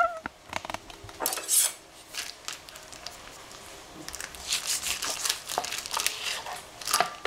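Kitchen knife slitting open the plastic packaging of a block of feta cheese on a plastic cutting board: crinkling and rustling of the wrapper with light clicks and knocks of knife and package on the board. The rustling comes in a short burst about a second in and grows busier over the last few seconds.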